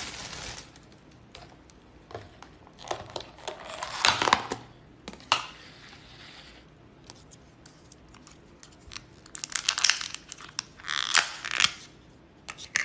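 Thin plastic crinkling and tearing in irregular handfuls, from packaging and a disposable plastic glove being handled, with the loudest rustling about four seconds in and again near the end.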